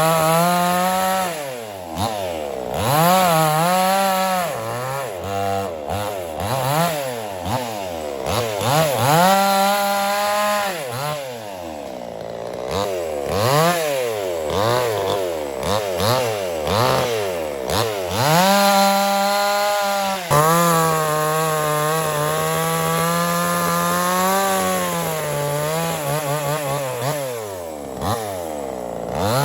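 Small two-stroke chainsaw cutting wood, its engine revving up and dropping back again and again, held at high revs for longer cuts in the middle and latter part.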